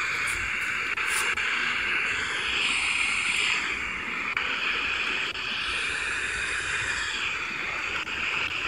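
Steady FM radio static: a Grundig G2 Reporter portable radio hissing through its speaker while tuned to about 78.0 MHz, where no station comes through.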